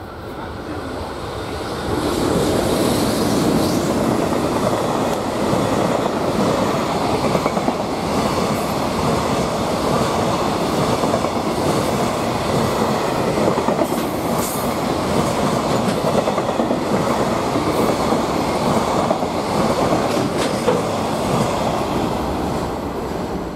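A freight train of container wagons behind an EH500 electric locomotive passing close by, its wheels clattering over the rail joints in a steady clickety-clack. The rumble swells about two seconds in and drops away just before the end as the last wagons pass.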